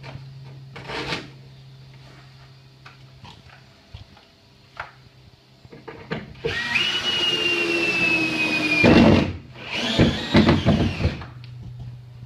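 A handheld power tool runs for about two and a half seconds with a whine that sags slightly in pitch, stops, then runs again for about a second and a half. Scattered knocks and taps come before it.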